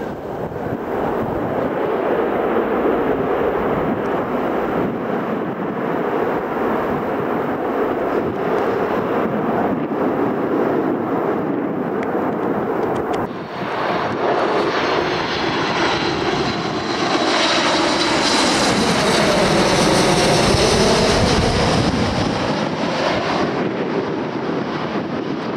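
Jet airliner passing low and close, its engine noise swelling from about halfway through, with a high whine, loudest a few seconds before the end and then easing. Wind buffets the microphone throughout.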